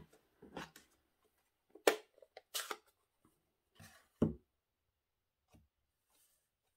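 Rubber-stamping supplies being handled on a craft table: a few separate short rustles and clicks, with a dull knock a little over four seconds in.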